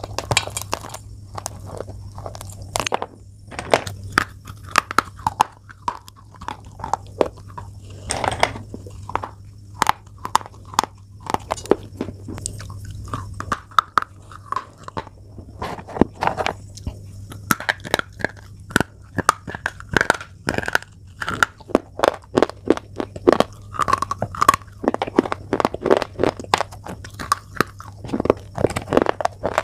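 Pieces of chalk being bitten and chewed close to the microphone: irregular sharp crunches throughout, over a low steady hum.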